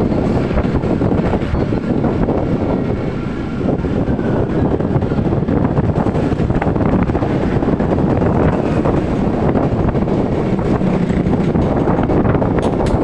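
Wind rushing over the microphone of a moving motor scooter, with the scooter's engine and road noise running steadily underneath.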